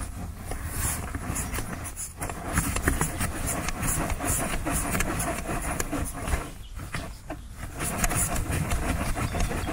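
Hands rubbing and pressing crumbly groundbait through a wire-mesh bait riddle: a continuous scratchy rasping of fingers and crumbs against the metal mesh, with small clicks, over a steady low rumble.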